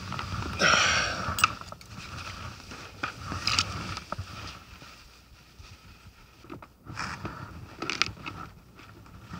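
Handling noise of gloved hands pulling fishing line to free a snagged lure: rustling and scraping of clothing and line, loudest about a second in, with a few sharp clicks.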